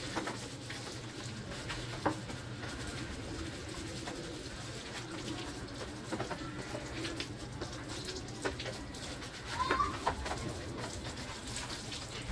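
Birds cooing now and then over a steady low background hum, with a few light clicks.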